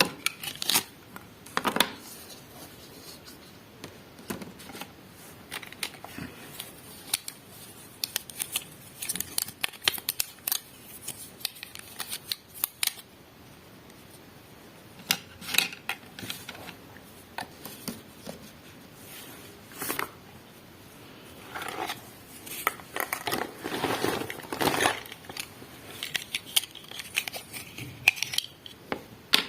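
Miniature plastic toy kitchen pieces and their packaging being handled: scattered sharp clicks and short crinkly rustles, busiest about three-quarters of the way through.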